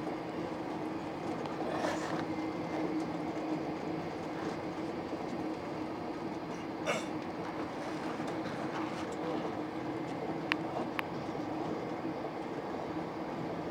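A passenger train running at speed, heard from inside the carriage: a steady rumble and hiss, with a sharp click about halfway through and two more a few seconds later.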